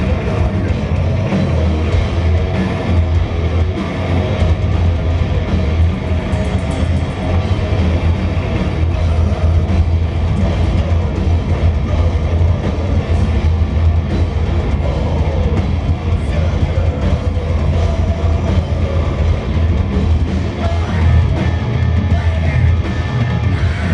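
Live thrash/grindcore band playing loud and distorted: heavily distorted electric guitars and bass over a drum kit, unbroken throughout.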